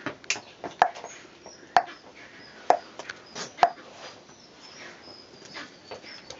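A handful of sharp, irregularly spaced clicks and knocks, loudest in the first four seconds. Faint, short, high-pitched bird chirps repeat in the background.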